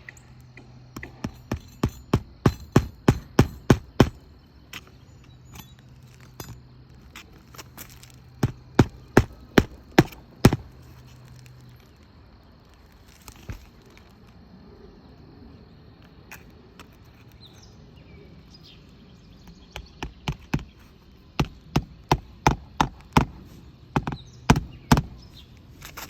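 Hand hammer driving roofing nails into a new asphalt shingle: three runs of quick, sharp strikes, about three a second, about a second in, at about eight to ten seconds, and again at about twenty to twenty-five seconds.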